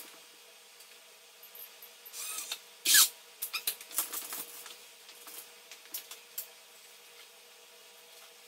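Metal hand truck being moved and set beside a full-size R2-D2 replica on a tile floor: a sharp clatter about three seconds in, then a few knocks and taps.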